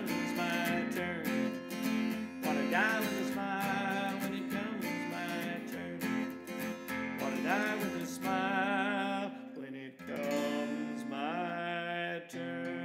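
Steel-string acoustic guitar strummed in steady chords, with a man's voice singing long, wavering held notes over it.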